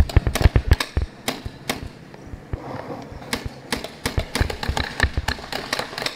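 Paintball markers firing: a quick string of sharp pops in the first second, then single shots and short bursts scattered through the rest.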